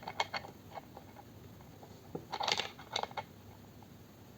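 Light clicks and knocks of a child's bike parts being handled and pressed together by hand: a few at the start, then a short rattling cluster about two and a half seconds in and another half a second later.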